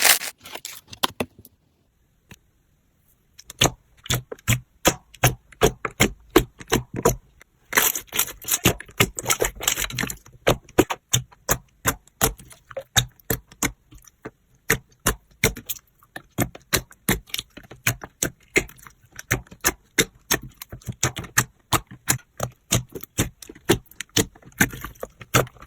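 Slime being pressed and worked by hand, giving a long run of sharp, irregular clicks and pops at about two to four a second, with a short pause about two seconds in and a denser burst of crackling about eight seconds in.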